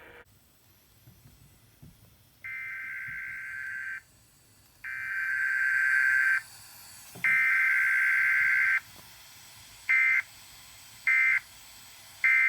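Emergency Alert System SAME digital data bursts over broadcast radio, the harsh two-tone warbling screech of the encoder. Three longer header bursts, the first quieter, are followed by three short end-of-message bursts that close out the Required Weekly Test.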